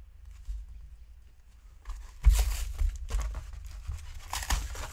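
The cardboard backing of a plastic blister pack is torn away by hand, with crinkling of the plastic. After a quiet start the tearing comes in several bursts, loudest just after two seconds in and again near the end.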